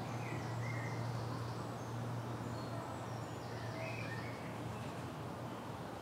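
Woodland ambience: a steady low hum with faint, scattered calls of small birds, a few short chirps now and then.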